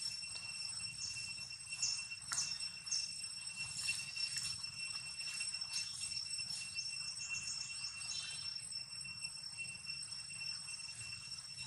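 Forest ambience: a steady high-pitched insect drone, with short high chirps scattered through it.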